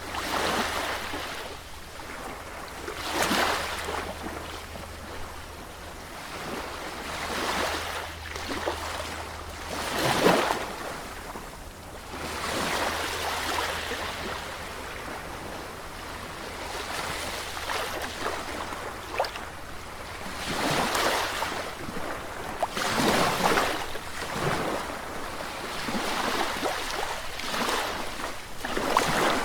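Sea waves breaking and washing on the shore, a surge of surf every few seconds with a sharper crash about ten seconds in. A steady low hum runs underneath.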